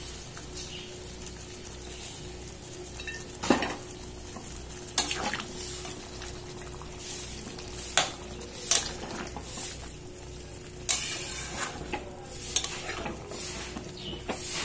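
A metal spatula stirring and scraping around a metal kadai of mutton curry, with irregular clinks and scrapes every second or two. Under it is the steady bubbling of the curry simmering in its cooking water.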